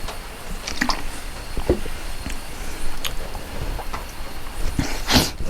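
A person eating close to the microphone: scattered bites, chewing and small crunches, with a brief hissing rush about five seconds in.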